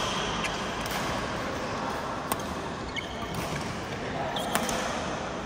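Badminton rackets striking a shuttlecock during a doubles rally: a few sharp hits spaced a second or two apart, over a steady din of play in the hall.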